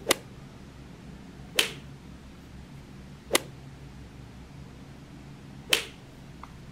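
Four short, sharp clicks, one every couple of seconds, over faint room noise.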